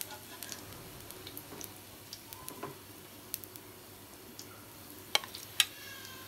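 Bread balls frying in oil in a steel frying pan: a faint steady sizzle with scattered small crackles, and two sharp clicks a little after five seconds in.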